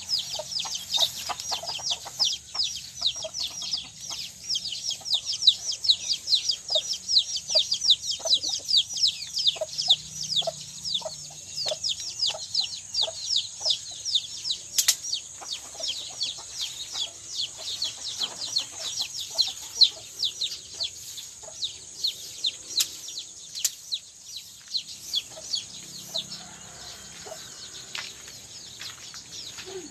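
Chickens clucking and chirping: a rapid, constant stream of short high chirps with some lower clucks, over a steady high-pitched buzz. The chirping thins out near the end.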